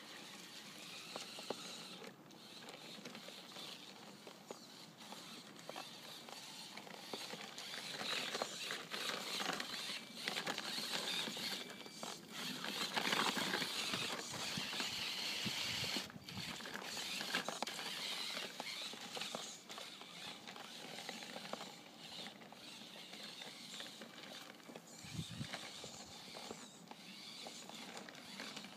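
Homemade 1:10 scale RC rock crawler driving through snow: its motor and gears whirring with a rough, uneven mechanical noise and the tyres crunching through the snow. The noise grows louder through the middle stretch as the crawler comes closer, then falls back.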